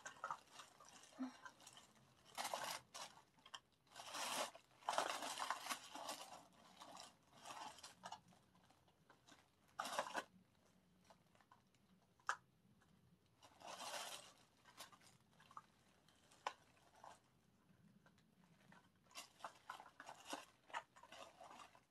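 Plastic packaging crinkling and rustling in irregular bursts as small items are pulled out and unwrapped, with a few sharp clicks.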